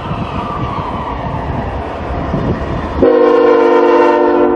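Diesel freight trains rumbling past, then a locomotive air horn blows loud and steady about three seconds in, holding for over a second.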